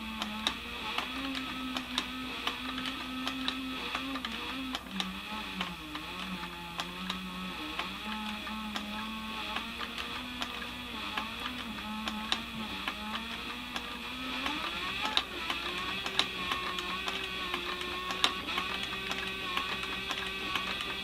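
Small electric motor running under changing load, its pitch dropping and recovering several times and rising near the end, with scattered light clicks.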